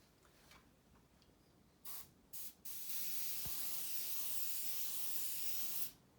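Aerosol can of smoke-detector test smoke spraying: two short puffs about two seconds in, then a steady hiss held for about three seconds that stops abruptly.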